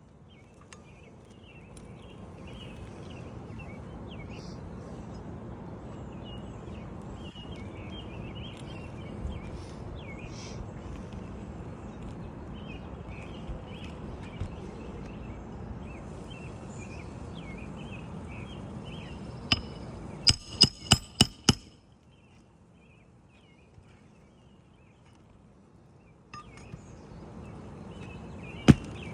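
Hammer striking roofing nails during a three-tab shingle replacement: a quick run of about six sharp blows two-thirds of the way in, then a single blow near the end, over steady outdoor background noise.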